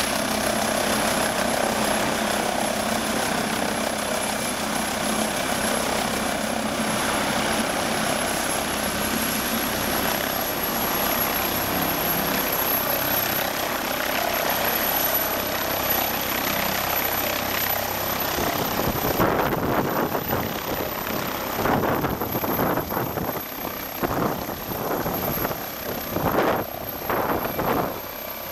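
MD 902 Explorer air ambulance helicopter running on the ground with its rotors turning: a steady turbine noise with a thin high whine that climbs slowly in pitch as it spools up. About two-thirds of the way through, the sound turns into an uneven pulsing as the helicopter lifts off.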